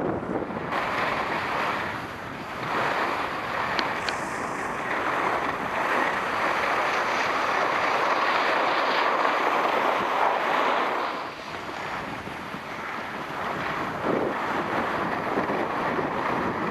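Skis sliding over groomed snow at speed, a continuous rushing hiss mixed with wind buffeting the microphone. It swells in the middle and eases a little about two-thirds of the way through.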